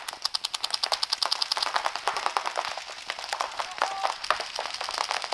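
Paintball markers firing rapid strings of shots, about ten a second for the first two seconds, then thinning to scattered shots.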